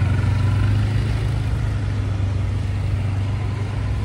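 A vehicle engine running steadily with a deep, low hum, easing off slightly in level.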